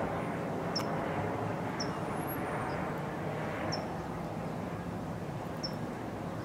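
Steady low outdoor rumble of distant engines and traffic, with a small bird giving about four short, high chirps spaced a second or two apart.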